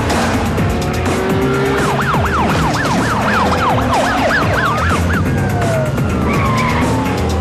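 Police car siren yelping in fast rising-and-falling sweeps, about four a second, for roughly three seconds, then a long falling wail, over the rumble of car engines.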